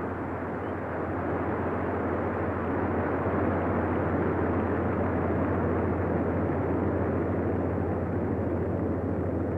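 Large stadium crowd cheering: a steady wash of voices that grows slightly louder about a second in and then holds.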